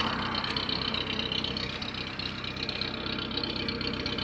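Car engine running steadily with an even low hum while towing another car on a rope, with a steady high hiss over it.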